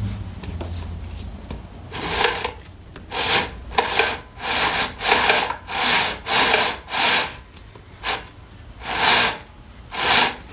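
A hand rubbing along a chainsaw's guide bar and chain in about ten separate scraping strokes, each about half a second long, starting about two seconds in.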